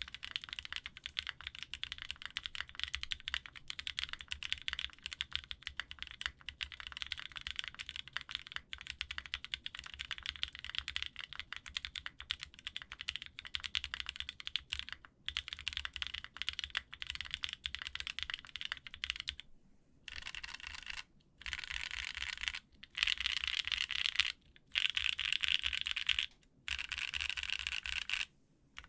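Typing on a custom mechanical keyboard: a GHS RAR with a polycarbonate plate, lubed Gazzew Boba LT linear switches and GMK keycaps. The keystrokes are fast and continuous. About two-thirds of the way in, the typing changes to louder, very dense bursts of a second or two, with short pauses between them.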